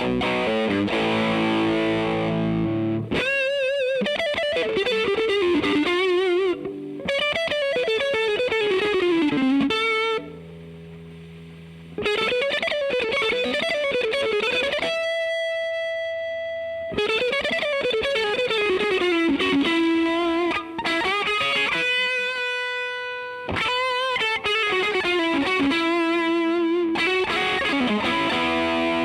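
Distorted electric guitar played through a DemonFX YJM308 overdrive pedal: fast single-note lead runs with wide vibrato, broken by a few held notes and short pauses. The playing cuts off at the very end.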